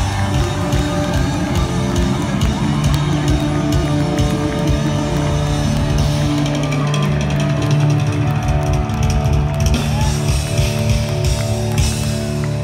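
Live rock band playing loud through the venue's sound system: electric guitar, bass guitar and drum kit, heard from the crowd.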